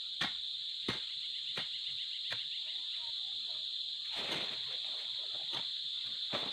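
Steady high-pitched chorus of insects trilling, with regular sharp clicks about every two-thirds of a second. About four seconds in, a brief rustle of a plastic bag being grabbed.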